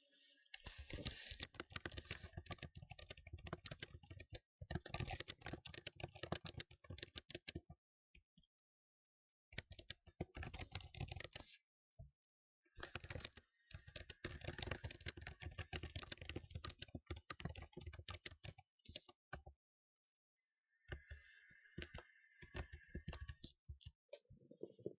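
Fast typing on a computer keyboard: dense runs of key clicks in bursts of several seconds, broken by short pauses of about a second.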